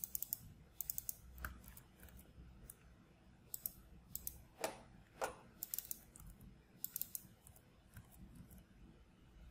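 Computer keyboard typing in short bursts of key clicks with pauses between them. Two short falling sounds come around the middle.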